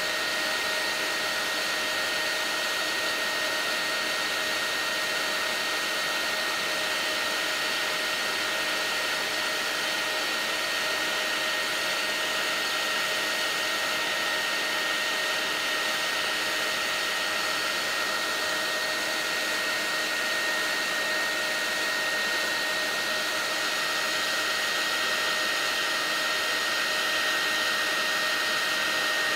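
Paint-stripping heat gun running steadily: a continuous rushing blow with a steady high whine, melting solder on a circuit board.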